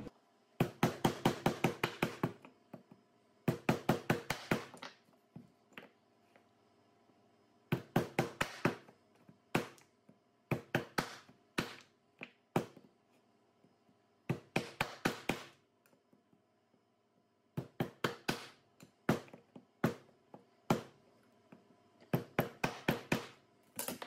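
Knife chopping through frozen duck breast onto a wooden cutting board: bursts of quick knocks, several a second, with short pauses between the bursts.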